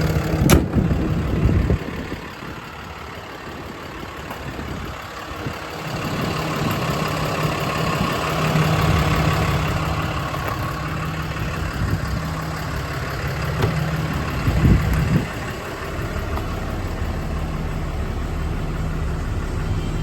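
6.7-litre Cummins inline-six turbo-diesel in a Ram 5500 idling steadily, showing no blow-by. A sharp click comes just after the start, and a few knocks come about three-quarters of the way through.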